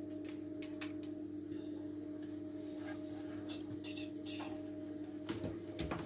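A steady low electrical hum runs under scattered light clicks and a few brief rustles of hands handling food in aluminium foil, with a couple of dull knocks near the end.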